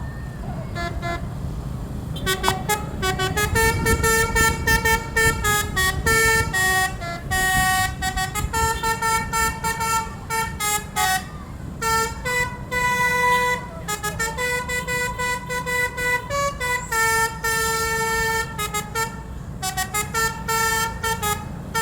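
Tunggal Jaya bus's telolet horn playing a long tune: a quick run of short notes that step up and down in pitch, with some held longer. A steady low rumble runs underneath.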